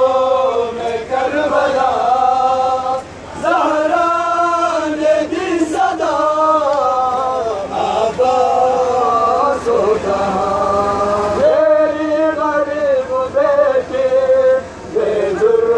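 Male voices chanting a noha, a Shia mourning lament, in a slow melody of long held notes. There are short breaks about three seconds in and again near the end.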